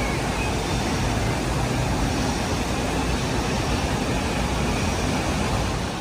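Steady outdoor background noise: an even low rumble with a hiss over it, with no distinct events.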